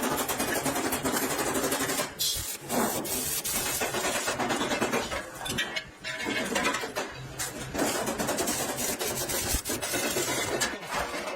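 Factory machinery running: a dense clattering noise with short breaks.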